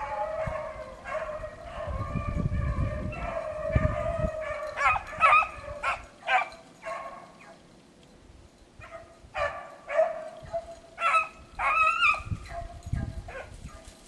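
A pack of beagles baying on a rabbit's scent, several hounds giving voice at once in overlapping drawn-out bays and sharper short yelps. The chorus drops away briefly about halfway through, then picks up again.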